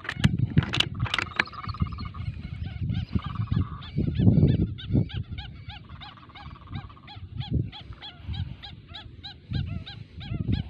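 Whistling ducks calling: a fast string of short whistled notes, each rising and falling, about four or five a second through most of the stretch. Under them is a low rumbling noise, and there are a few sharp clicks in the first second and a half.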